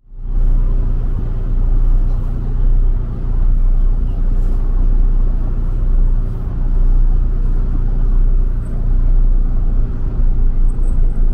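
Sightseeing boat's engine running with a steady low drone, heard on board as the boat gets under way from the pier.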